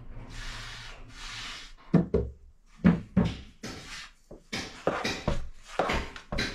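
A metal blade scraping and knocking while working bread dough on a board and tray: a rubbing scrape in the first second or so, then a few sharp knocks, then quicker short taps.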